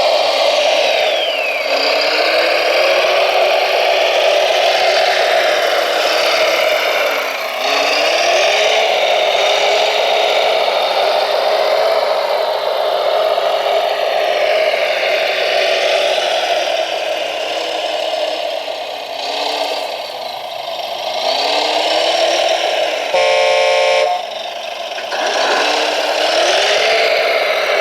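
Radio-controlled model trucks and construction machines running: a steady electric motor and gearbox whine whose pitch repeatedly drops and climbs again as the models slow and speed up. About 23 seconds in, a horn sounds for about a second.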